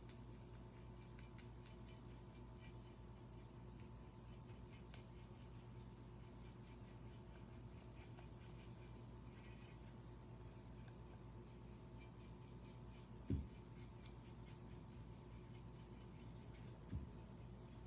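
Faint scratchy rubbing of a large paintbrush stroking acrylic paint onto a ceramic piece, stroke after stroke, over a steady low hum. Two dull low thumps in the second half, the first the louder.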